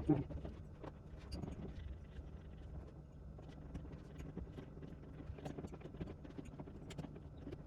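Scattered light clicks and small knocks over a low steady hum.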